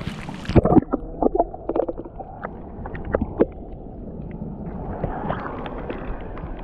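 Muffled underwater water noise heard through a camera dipped into a shallow tide pool, with a run of sharp clicks and knocks in the first few seconds. The sound opens up a little more after about five seconds as the camera nears the surface.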